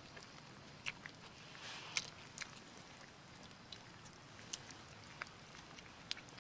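Wood campfire crackling faintly, with scattered irregular sharp pops; the loudest comes about two seconds in.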